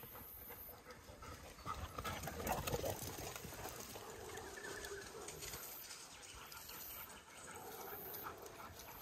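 Dogs moving about close by through bush undergrowth: irregular rustling and footfalls, loudest about two to three seconds in.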